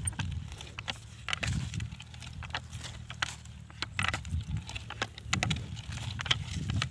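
Tines of a long-handled hand weeder scraping and crunching through dry, crumbly soil, with irregular clicks of clods and grit against the metal head.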